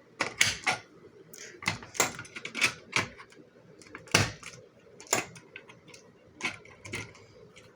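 Manual fire alarm pull station being worked by hand: a dozen or so sharp mechanical clicks and clacks, irregularly spaced, as the handle and cover are pushed, pulled and reset.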